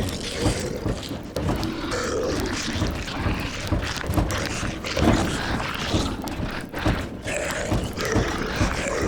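Horror sound-effect ambience of guttural moaning and grunting zombie voices over a steady hiss of rain, with irregular knocks and thumps throughout.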